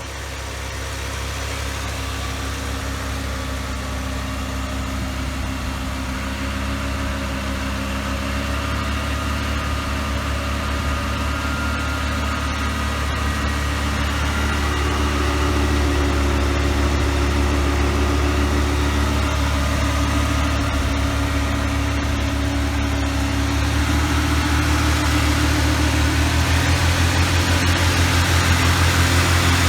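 1984 Pontiac Trans Am's V8 idling steadily, growing gradually louder over the half minute, while running again after years of sitting.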